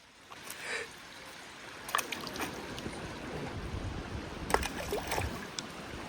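Footsteps and scattered clicks on a rocky trail, with a low rumble of wind or handling on the microphone building up about halfway through.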